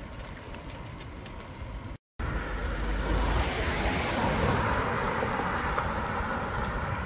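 Wind buffeting the microphone and road and traffic noise while riding a bicycle along a street. The sound cuts out for a moment about two seconds in, then comes back louder with a heavier low rumble.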